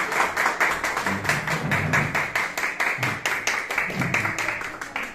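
A small group applauding by hand, steady clapping that tapers off near the end.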